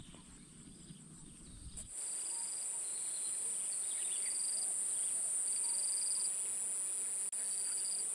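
Steady high-pitched insect trilling that starts about two seconds in, with short, slightly lower chirps recurring about once a second.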